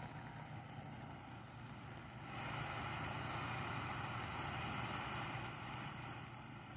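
Compact camping micro stove burner running on propane through an adapter, a steady gas hiss that swells louder for a few seconds in the middle.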